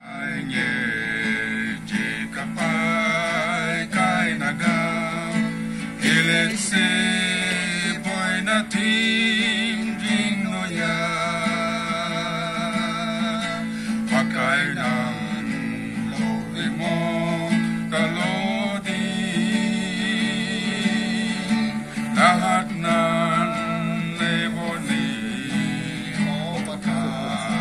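A song with acoustic guitar strummed under a singing voice.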